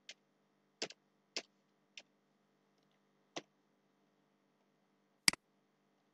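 A few separate clicks of computer keyboard keys and a mouse button, six in all and spaced irregularly, with the loudest about five seconds in. A faint steady hum runs underneath.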